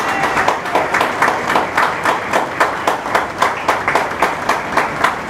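A crowd clapping in rhythm, about five claps a second.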